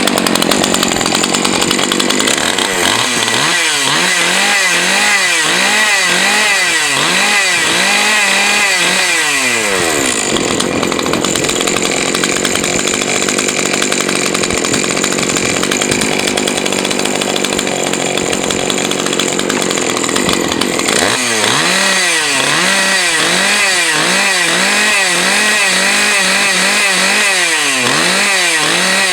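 Husqvarna 543 XPG two-stroke chainsaw engine running with the bar and chain off, its throttle blipped over and over so the pitch rises and falls in quick cycles, then held at a steady high rev for about ten seconds before the blipping starts again. The owner guesses the carburettor is set a little low on the high-speed side, so full-throttle revs are lower than they should be.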